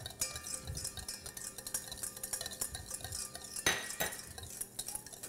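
Vinaigrette stirred briskly in a bowl to emulsify the olive oil into the vinegar: a utensil clicks and scrapes rapidly against the bowl, with one louder knock a little past halfway.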